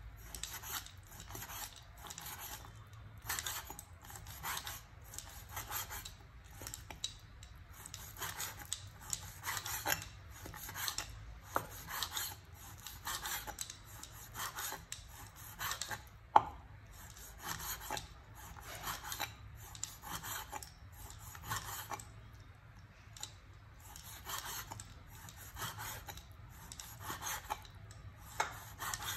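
Cleaver slicing raw meat on a wooden cutting board: repeated scraping strokes of the blade through the meat and against the wood, about two a second with short pauses. A single sharper knock comes about halfway through.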